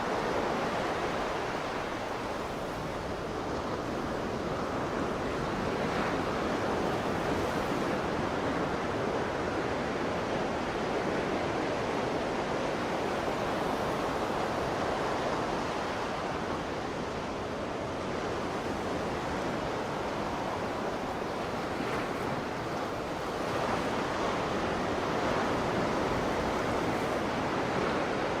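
Ocean waves breaking and washing in steadily, the surf swelling and easing over several seconds, with some wind.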